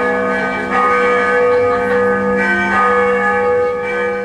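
A mobile-phone ringtone of ringing bells, played loud over a sound system: the bells are struck again and again, their tones ringing on between strikes.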